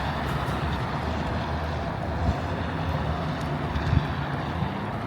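Steady rushing of wind on the microphone and road noise while riding a small electric bike, with a low hum underneath and two brief knocks about two and four seconds in.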